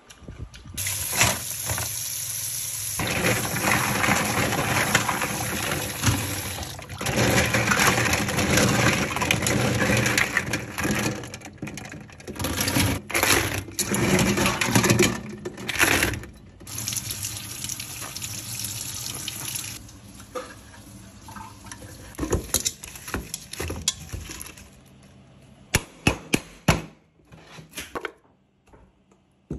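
Tap water running into a steel bowl as long green leaves are washed by hand, splashing for about twenty seconds with a few brief dips. Then the water stops and wet leaves are handled more quietly in the bowl, with a few sharp knocks near the end.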